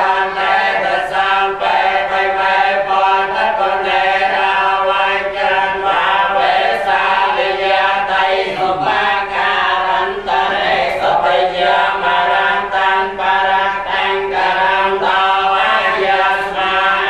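Group of Khmer Buddhist monks chanting in unison, several male voices in a steady, continuous recitation, with two of them chanting into handheld microphones.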